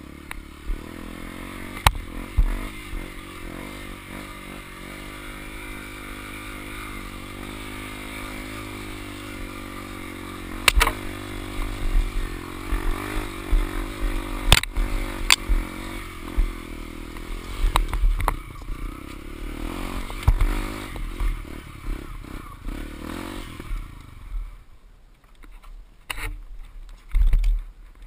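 Single-cylinder four-stroke dirt bike engine pulling hard up a steep rutted dirt climb, its note rising and falling with the throttle. Sharp knocks come as the bike jolts over the ruts. About four seconds from the end the engine drops away to a low idle, with a few more knocks.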